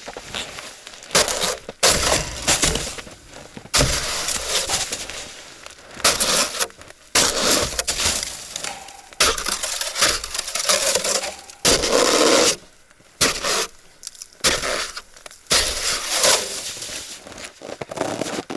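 Footsteps crunching through hard snow, roughly one loud crunch a second, uneven in spacing and strength.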